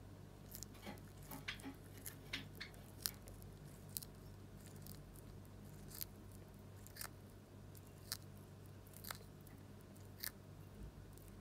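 Russian tortoise biting and chewing fresh molokhia (jute mallow) leaves and stems: about a dozen short, crisp crunches at an uneven pace, roughly one a second.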